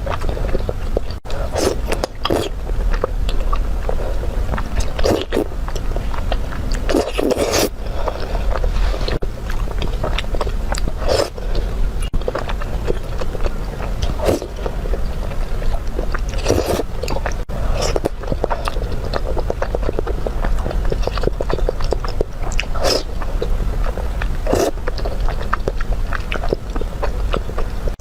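Close-miked eating: irregular biting and chewing of food, with frequent sharper bites, over a steady low hum.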